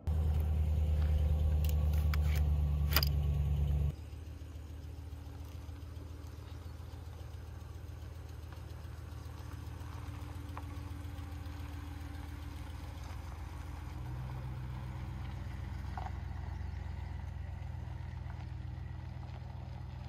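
Ram 1500 pickup's engine running steadily, loud and close inside the cab with a few sharp clicks for the first four seconds, then heard from outside at a lower level as the truck drives away.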